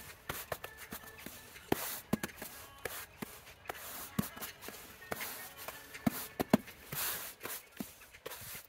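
Stiff push broom sweeping sand across wet stone paving slabs to fill the joints: repeated scraping strokes of the bristles, about one a second, with sharp knocks as the broom head hits the stone.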